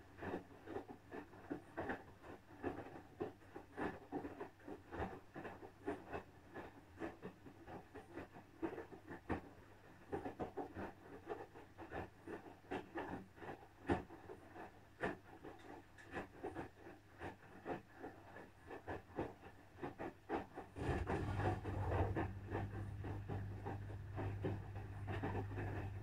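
Asko Pro 9 kg front-loading washing machine in its wash cycle: the drum tumbling wet laundry with irregular soft knocks and swishes over a faint low hum. After about twenty seconds a steady low hum comes in and the machine runs louder.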